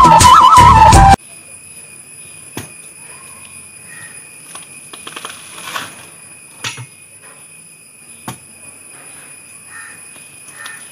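Loud traditional flute music with rattles cuts off abruptly about a second in. After it, a green tender coconut is husked on a lever-type spike coconut dehusker: scattered short knocks and rustles of the husk being levered and torn, over a steady thin high whine.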